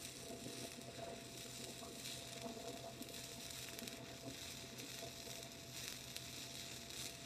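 Gasless flux-core wire-feed welding arc from a Best Arc MIG 145 running .030 flux-core wire at 18 volts on steel square tubing, making a continuous crackling sizzle as a tack is laid in an inside corner.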